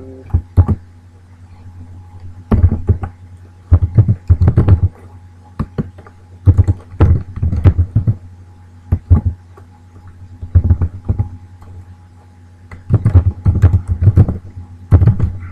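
Typing on a computer keyboard: quick runs of keystrokes in bursts of about a second, with short pauses between, over a steady low hum.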